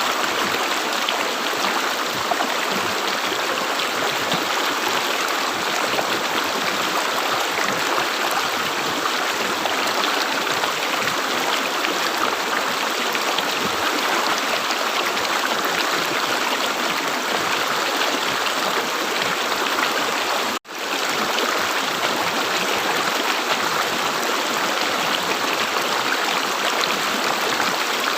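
River water gurgling and flowing steadily, with a momentary dropout about two-thirds of the way through where the sound cuts out for an instant and comes straight back.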